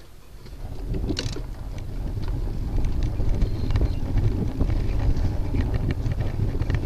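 Wind buffeting a bicycle-mounted camera's microphone, with rumble from the tyres on rough concrete and scattered clicks and rattles; it swells about a second in as the bike gets moving.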